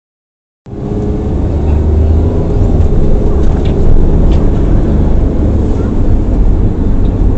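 A car driving: a steady low rumble of engine and road noise that starts abruptly about half a second in.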